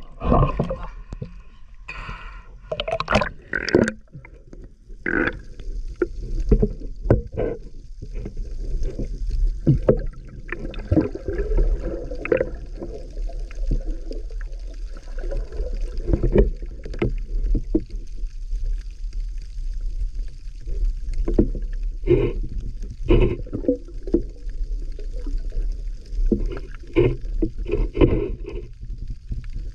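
Water splashing and draining as a mesh catch bag is lifted out of the sea in the first few seconds. Then comes muffled underwater water noise from a swimmer moving over the seabed: an irregular low churning and sloshing with a steady deep rumble.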